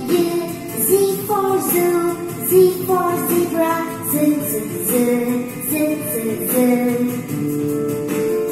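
Children's alphabet phonics song: a woman sings the letters Y and Z ('Z for zoo, Z for zebra') in a simple stepping melody over backing music.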